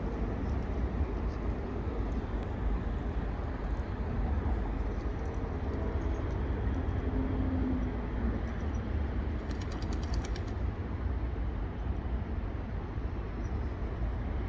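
Steady low outdoor rumble with no clear events, the kind made by wind on a microphone or distant traffic.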